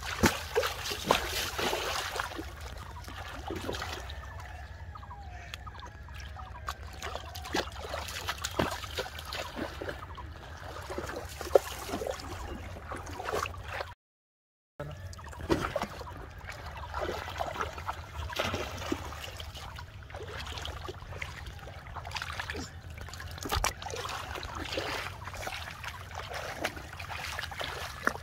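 Shallow river water splashing and sloshing as a child wades through it and scoops with his hands, with many irregular splashes. The sound drops out briefly about halfway through.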